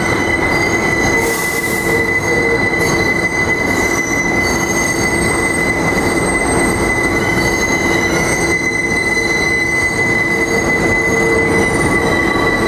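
NYC Subway R160A train moving away along the track, its steel wheels squealing against the rails in a steady high-pitched tone, with shriller squeals coming and going above it, over the rumble of the wheels.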